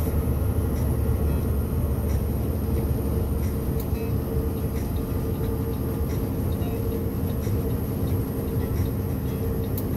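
Steady drone of a Mack Titan 525 hp truck's diesel engine and road rumble, heard inside the cab while cruising at an even speed.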